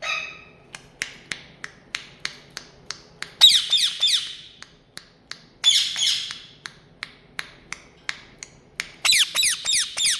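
Pet parrot squawking in three harsh bursts of quick falling calls, with a run of sharp clicks about three a second between them.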